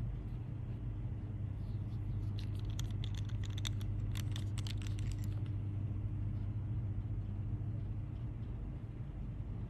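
A steady low hum runs throughout. From about two to five seconds in, a quick cluster of light clicks and taps comes from handling a fountain pen, taking off its cap and setting it down on the box.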